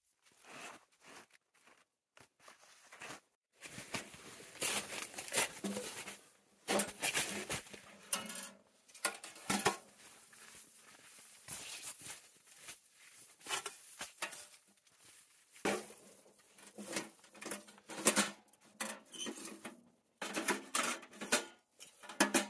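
Irregular rustling and scraping of pine boughs and tent canvas, with scattered clinks, knocks and clatter of metal as a small steel wood stove and its wire grate are handled and set up.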